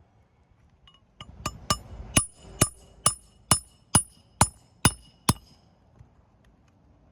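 Hammer driving a roofing nail into a shingle: about eleven sharp, ringing blows, roughly two a second, starting about a second in and stopping after about five seconds.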